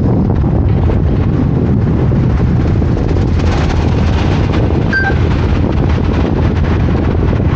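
Steady, loud low rumble of a car driving in city traffic, road and wind noise on the microphone; a brief short high tone about five seconds in.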